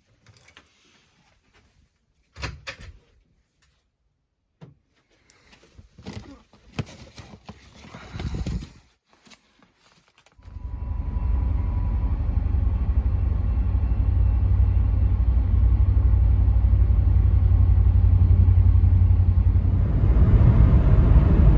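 A few scattered clicks and knocks, then about ten seconds in a vehicle's steady low rumble sets in and carries on, a little louder near the end.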